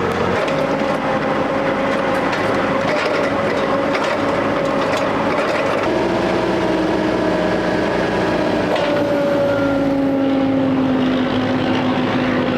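Caterpillar forklift's K25 four-cylinder engine running, its pitch stepping down about six seconds in and again near ten seconds, with scattered light clicks. The engine is being run up to temperature after a head gasket repair, and its temperature is holding just below half.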